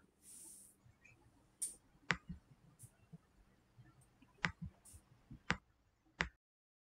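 A handful of faint, sharp clicks scattered over several seconds against low room noise, then the sound cuts off to dead silence near the end.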